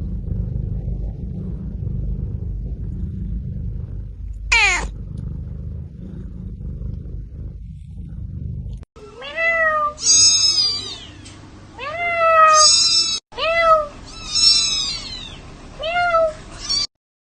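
A domestic cat gives one short meow that falls in pitch, over a low steady rumble. Then comes a run of about eight high-pitched kitten mews, each rising then falling in pitch.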